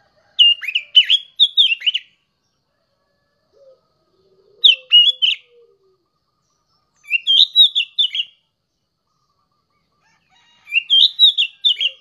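A young sooty-headed bulbul singing: four short, loud phrases of quick warbled notes that rise and fall, a few seconds apart.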